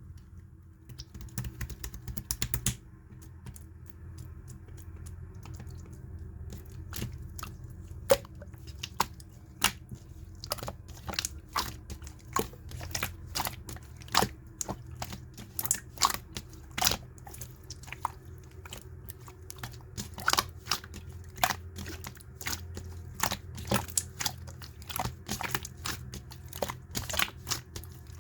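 Clear slime being squeezed and poked by hand, giving a steady run of sharp, sticky clicks and pops, several a second, starting about a second in.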